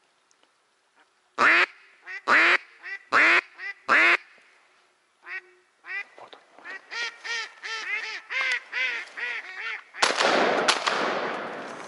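Live decoy duck quacking: four loud single quacks, then a rapid run of shorter quacks, calling to draw in a drake. A burst of loud rustling noise takes over about ten seconds in.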